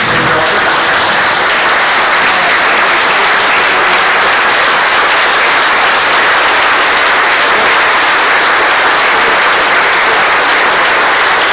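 Sustained applause from a large audience, steady and unbroken.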